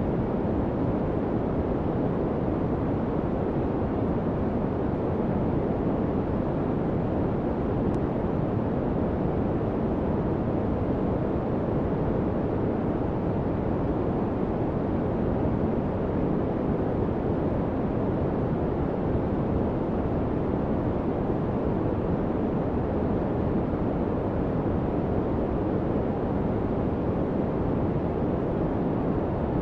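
Steady, unchanging noise track from a subliminal audio's white-noise version, a deep, even rushing hiss with most of its weight in the low and middle range.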